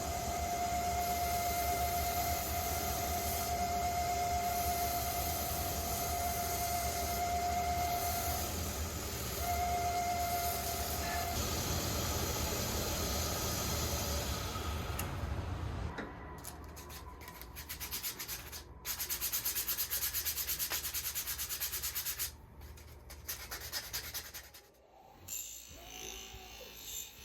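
Rusty hand plane's metal body being sanded to work out rust pitting: steady rubbing for about the first fifteen seconds, then a run of quicker, broken rubbing strokes.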